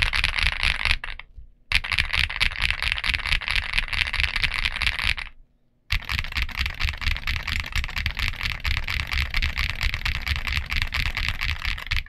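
Rapid typing on an INKC65 mechanical keyboard with CIY Asura switches and Domikey Productivity keycaps: a dense run of keystroke clacks that breaks off briefly twice, about a second in and around the middle.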